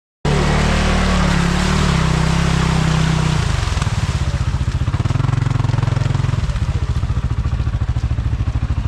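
ATV engine running, its pitch dropping twice as the throttle comes off, then settling near the end into a slow, even beat of single firing strokes close to idle.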